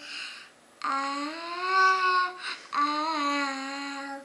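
A little girl singing solo and unaccompanied, holding long, slightly wavering notes, with a brief break about two and a half seconds in.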